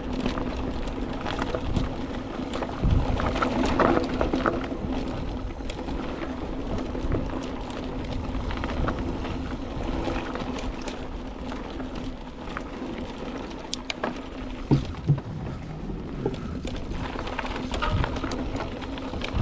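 Mountain bike ridden along a dirt single-track trail, with a steady hum and scattered clicks and knocks from the bike over the ground.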